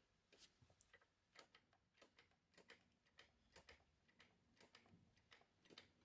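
Faint light clicks, roughly two a second, from a Ducati Scrambler's rear brake pedal being pumped by hand, settling the caliper piston against freshly fitted brake pads.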